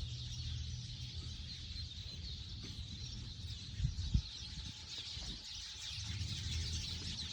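Outdoor farm ambience with birds chirping over low wind rumble on the microphone, and two soft knocks about four seconds in.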